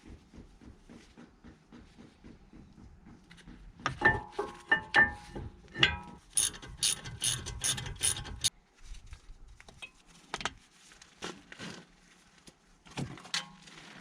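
Ratchet wrench clicking in an even run of ticks, about three a second, then a few seconds of louder, sharper metallic clicks and clatter of tools and parts, followed by scattered single clicks.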